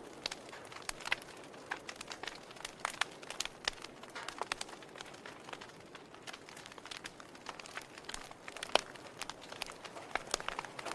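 Wood fire in a fireplace crackling: irregular sharp pops and snaps of burning firewood over a soft steady hiss, with the loudest pop about nine seconds in.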